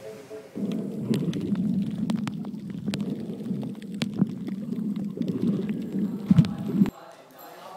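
Muffled underwater sound picked up by a camera in its housing: a dense low rumble with scattered sharp clicks, cutting off suddenly near the end.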